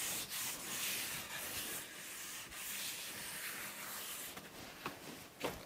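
Cloth rubbing mineral oil into the end grain of a wooden cutting board: a soft, steady rubbing that slowly fades, with a few light taps near the end.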